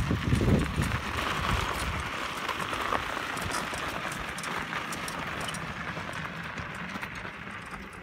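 Air tyres of a four-wheeled plastic garden cart rolling over gravel: a steady crunching hiss that grows fainter as the cart moves away. A few low thumps come in the first second.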